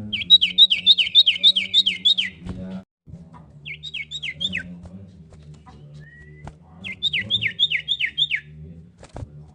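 Common iora singing: three runs of quick, falling chirps, the first the longest, with a short rising whistle between the second and third, over a steady low hum.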